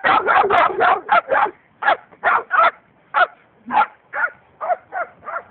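A dog barking in play: a quick run of barks at first, then single barks about twice a second, growing a little weaker towards the end.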